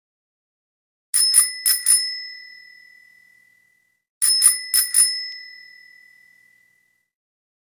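Bicycle bell rung twice, each time four quick dings on one clear high tone that ring out for a couple of seconds, the second burst about three seconds after the first.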